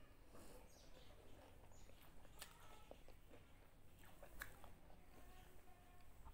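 Faint chewing of a mouthful of pani puri, with soft mouth noises and two small clicks about two seconds apart.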